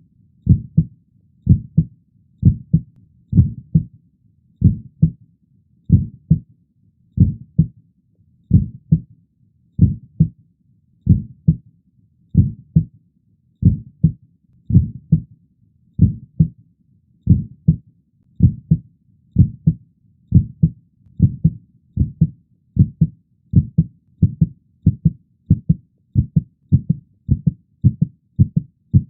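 Heartbeat sound effect: steady paired lub-dub thumps, the beat slower through the middle and quickening toward the end.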